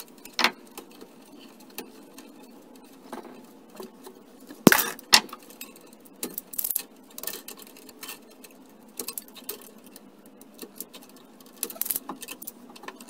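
Hand tools clicking and snipping on copper electrical wires: cutters and wire strippers trimming and stripping the neutral wires at a metal junction box. Scattered small clicks and clinks, with two sharp snaps close together about five seconds in.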